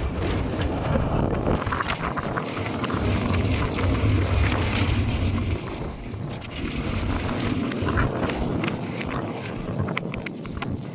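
Old electric tram running along its tracks, heard from the driver's platform: a low motor hum and the rolling of wheels on the rails, with rattles and clicks from the car body. The low hum is strongest from about two to five and a half seconds in.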